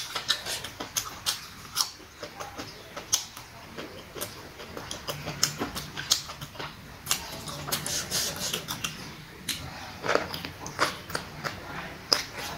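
Close-up chewing and mouth sounds of someone eating crunchy boiled pork intestine (dồi trường) with fresh herbs: irregular wet clicks, smacks and crunches.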